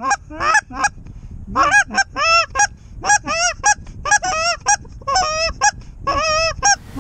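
Goose honks and clucks, loud and close, in quick runs of several calls each with short breaks between.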